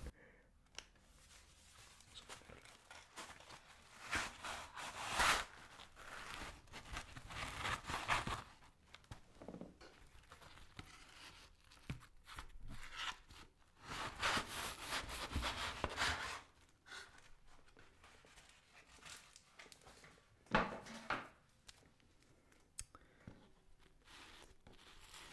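A thin-crust bechamel pizza being torn apart by hand close to the microphone: the crust and cheese tear in several short, irregular bursts, with handling of the cardboard pizza box.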